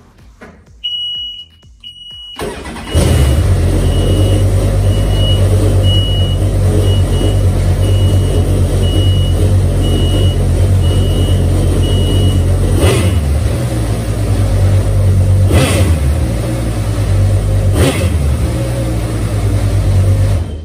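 Supercharged Kawasaki Ultra 250X four-cylinder jet-ski engine cranking, catching, and running at a steady idle for about seventeen seconds on its first start, then shutting off suddenly. An intermittent high beep sounds over the first half.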